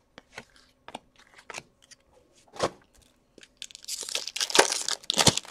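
Trading-card pack wrapper crinkling and tearing open. A few light clicks of handling come first, then a dense rustle in the last two seconds.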